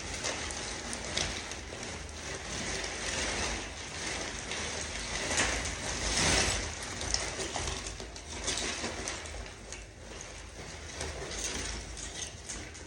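Drop cloth being gathered up and handled, plaster debris sliding and rattling off it, with many small scattered clicks and a louder stretch about six seconds in.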